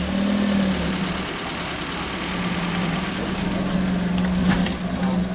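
Engine of a small Suzuki hatchback running at low revs as the car creeps past, a steady hum.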